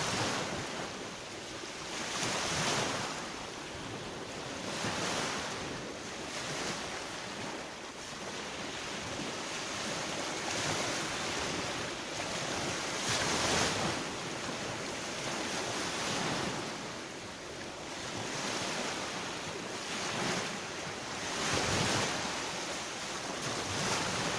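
Black Sea surf on the shore, the waves' wash surging and easing every few seconds.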